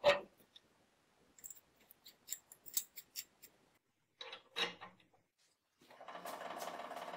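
Metal knocks and sharp clicks of a ratchet wrench being handled and its socket turned by hand, ratcheting in short runs. About six seconds in, the hydraulic press's pump starts with a steady hum and whir.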